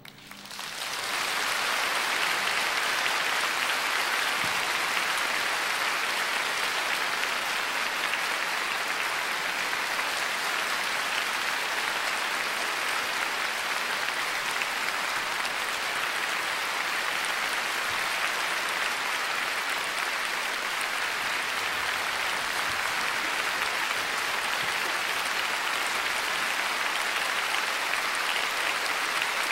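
Concert audience applauding, building up within the first second after the orchestra's final chord dies away and then holding steady.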